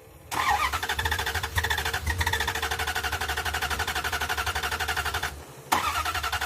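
A truck's starter cranking the engine, which turns over in a fast, even rhythm but does not fire or catch. It cranks for about five seconds, stops briefly, then cranks again. The truck will not start, and the cause is unknown.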